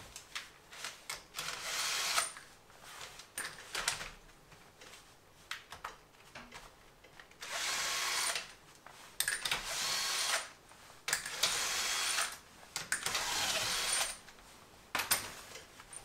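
Cordless drill with a 22 mm socket spinning wheel nuts off, in several short runs of a second or so each. Metal clinks and knocks from the socket and nuts come between the runs.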